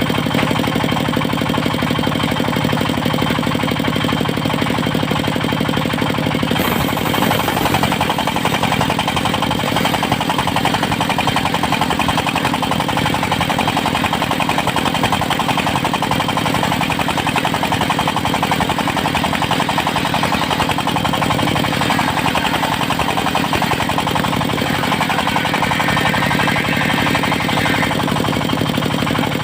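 Diesel engine of a mobile circular-saw sawmill running steadily, with a rapid even beat. A harsher hiss in the upper range joins about seven seconds in.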